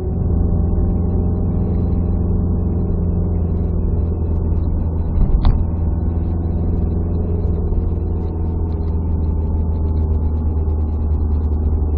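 Car engine and road noise heard from inside the cabin: a steady low drone whose pitch drifts slowly, with one sharp click about five and a half seconds in.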